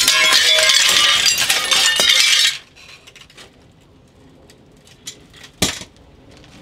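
Broken window glass crackling and tinkling as shards are pulled and snapped out of the frame, for about two and a half seconds. Then only a few small clinks, with one sharp click near the end.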